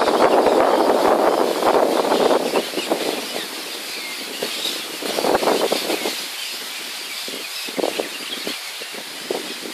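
Wind buffeting the microphone, loud and rough for the first two seconds or so, then easing into short irregular gusts. Faint birds call in the background.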